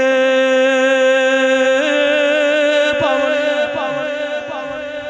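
A singer holding one long, loud note in a devotional alaap, the pitch stepping up slightly about two seconds in and dipping in short glides near the end.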